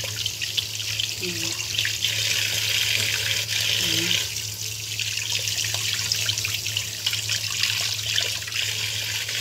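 Kitchen tap running steadily into a sink while raw chicken pieces are rinsed by hand under the stream, water splashing off the meat, over a steady low hum.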